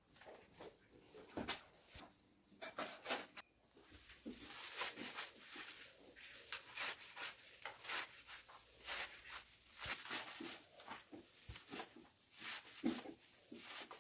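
Fresh leafy greens being cut on a floor-mounted curved blade (boti): a quick, irregular run of crisp slicing snicks and leaf rustling.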